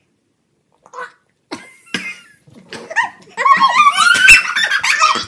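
Two children coughing and crying out after a mouthful of spicy gross food: a few short coughs, then about two seconds of loud, wavering, high cries with their mouths open.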